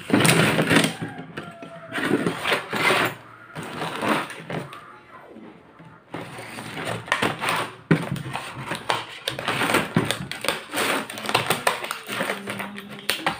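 Stiff plastic blister packaging crackling and clicking in irregular bursts as a doorknob set's pack is handled and slit open with a utility knife.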